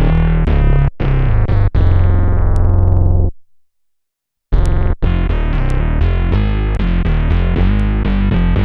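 A Fender Jazz Bass played through an Electro-Harmonix Bass Mono Synth pedal and recorded direct, giving a buzzy synth-bass tone. A few notes lead into a held low note that stops about three seconds in. After about a second of silence, a quick line of notes starts up again.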